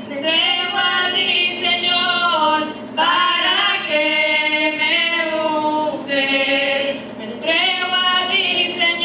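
Group of voices led by women singing a slow Spanish worship song unaccompanied, in phrases of long held notes.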